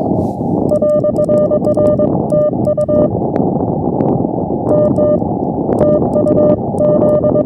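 Morse code (CW) tone of about 600 Hz keyed in dots and dashes from a ham radio transceiver, over a steady hiss of band noise, with sharp clicks coming along with the keyed elements. The code pauses for about a second and a half a little past the middle, then resumes.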